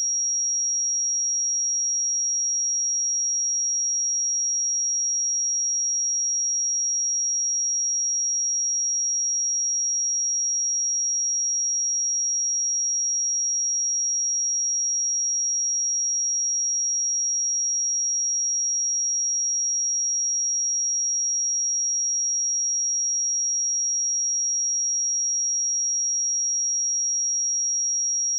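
A pure 5655 Hz sine-wave test tone, a single high-pitched steady tone held at constant level.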